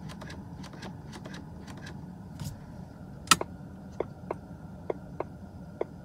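Inside a 2018 Mustang GT's cabin: faint clicks of the rotary headlight switch being turned back and forth, then about three seconds in a loud click as the hazard button is pressed. The hazard flasher then ticks in pairs about a third of a second apart, repeating a little under once a second, over a low steady hum.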